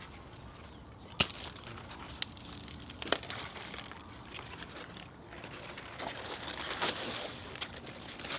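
Pulled sunflower plants and their root balls being handled: rustling and crunching of leaves, stalks and soil, with three sharp snaps in the first few seconds.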